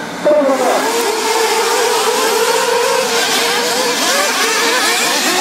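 A pack of 1/8-scale nitro RC off-road buggies launching at the race start. Their small two-stroke glow engines rev up together suddenly about a quarter second in, then run on as a dense, wavering, high-pitched whine of many engines at once.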